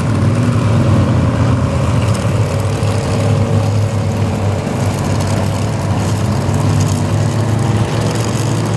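Steady low motor hum that holds an even pitch.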